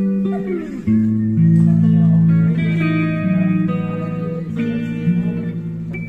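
Tagima Strat-style electric guitar played through an amplifier: a slow line of long held notes, with a note bent or slid downward about half a second in.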